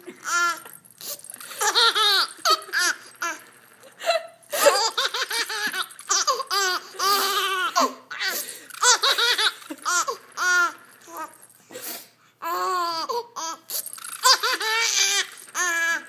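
Young baby laughing in a long run of high-pitched bursts, with short pauses between them.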